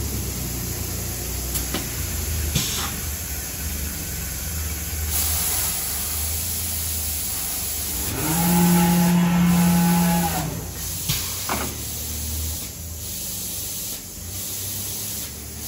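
Biesse Rover A3 CNC router running: a steady low machine hum with a few sharp clicks and a high hiss, and about halfway through a loud whine that rises, holds for about two seconds, then falls away as the head and gantry travel.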